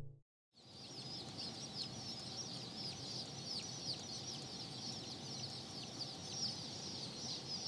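A box full of Blue Polish chicks peeping nonstop, a dense overlapping chorus of short, high cheeps that each fall in pitch, starting about half a second in.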